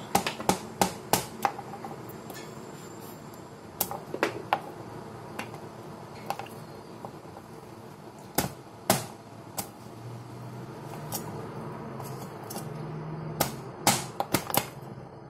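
Large kitchen knife chopping coconut flesh on a cutting board: sharp knocks of the blade striking the board, a quick run of about five in the first second and a half, then scattered knocks in pairs and threes.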